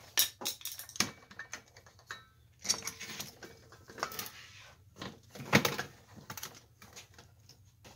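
Irregular clicks, knocks and rustles of hands handling a nickel-plated swing arm desk lamp's metal arm and its cord, with the loudest knock a little past halfway.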